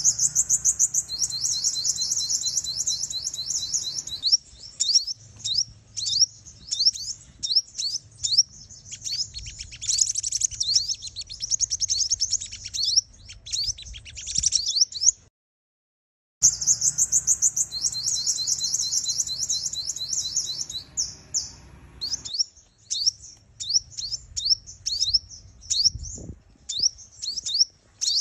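Female sunbird calling in rapid, high-pitched chirps and fast trills, the kind of call used as a lure to excite male sunbirds. The calling cuts off for about a second midway, then resumes.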